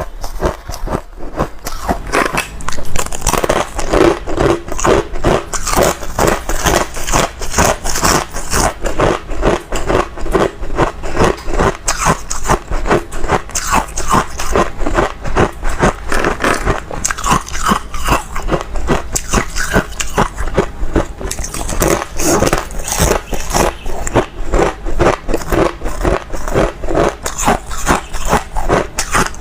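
Hard ice crunched between the teeth close to the microphone: a continuous run of rapid, crisp crunches, several a second.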